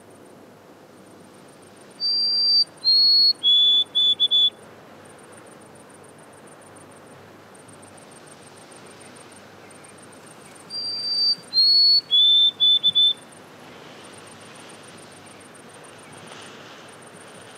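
White-throated sparrow singing two songs of clear, pure whistled notes, one about two seconds in and the next about eleven seconds in. Each song steps down the scale: a held high whistle, a slightly lower one, then three short lower notes.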